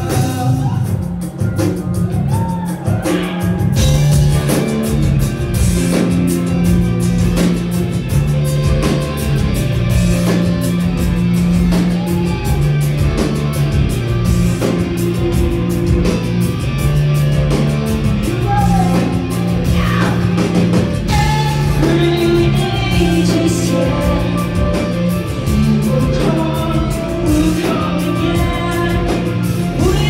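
Live rock band playing loudly with a singer: steady heavy bass and guitars under sung vocal lines, heard through a phone's microphone from a theatre balcony.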